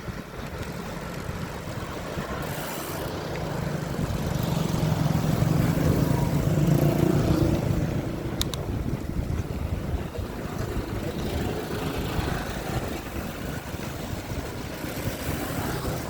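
A vehicle running on the road with wind noise on the microphone, its low engine hum growing louder in the middle and then easing off.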